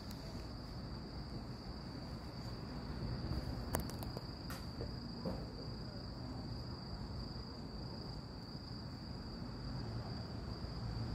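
Crickets trilling in one steady, unbroken high note over a low rumble of distant traffic, with a few sharp clicks a little under four seconds in.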